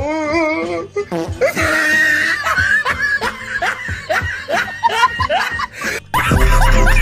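Laughter over background music, then about six seconds in, louder music with a heavy bass comes in suddenly.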